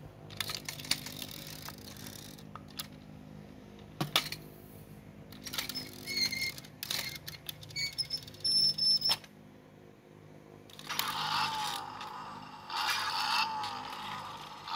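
Small die-cast toy cars handled on plastic car-carrier trailers: scattered light clicks and clacks of metal on plastic, a few short metallic rings midway, and two longer stretches of rattling, scraping toy wheels rolling near the end.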